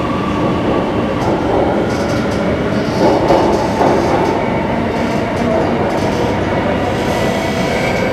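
Singapore MRT Circle Line train heard from inside the car as it pulls out of an underground station into the tunnel: steady running noise with light clicking, swelling briefly about three seconds in.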